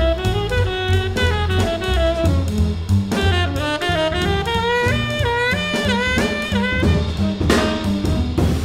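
Small jazz group playing: a tenor saxophone solos in quick runs of short notes over double bass and drum kit, with steady cymbal strokes and a louder cymbal splash near the end.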